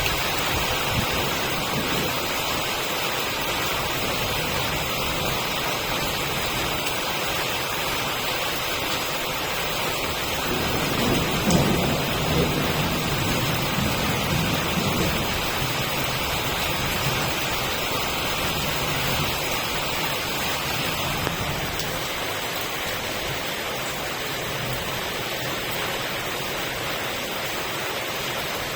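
Steady rain falling. About ten seconds in, a low rumble swells for roughly five seconds and fades.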